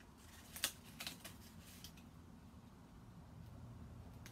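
Faint rustling and small ticks of paper being curled over and pinned onto a stick pin by hand, with one sharper tick about half a second in.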